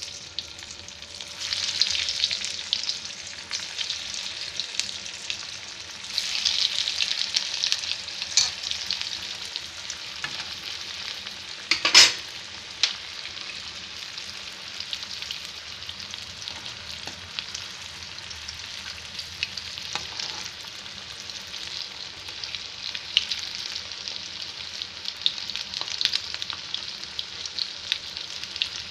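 Bread-crumbed paneer fingers deep-frying in hot oil in a kadai, a steady crackling sizzle that swells twice in the first several seconds. About twelve seconds in there is a single sharp knock.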